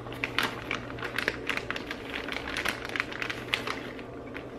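Plastic bag of shredded cheese crinkling and crackling in the hands, with irregular small crackles as the cheese is shaken and pinched out onto a pizza.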